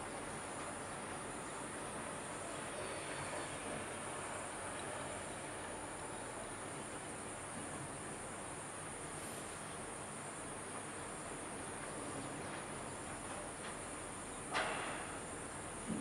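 Insects trilling steadily in one continuous high-pitched band over a constant outdoor hiss. A single sharp knock stands out about a second and a half before the end.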